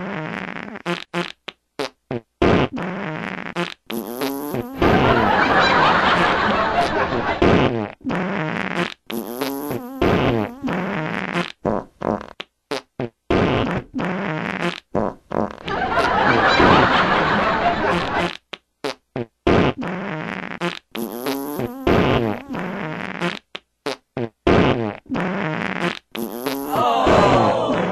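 A long run of fart sounds: many short blasts in quick succession, broken by a few longer, louder, wavering ones about five, sixteen and twenty-seven seconds in.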